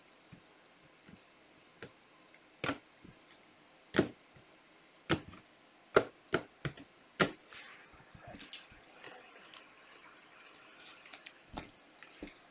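Irregular sharp taps and clicks at a desk, roughly one a second, giving way about halfway through to lighter, quicker ticking with a faint rustle.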